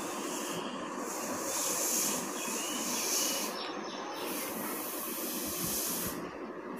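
Air hissing out of the neck of an inflated balloon as it is slowly let down.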